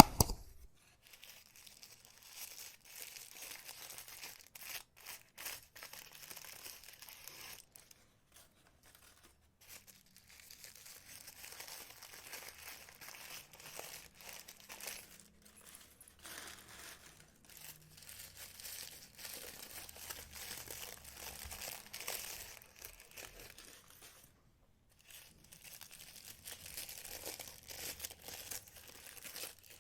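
Plastic packaging crinkling and rustling in irregular spells as small packets of jewelry clasps are handled and opened, with a short loud knock at the start.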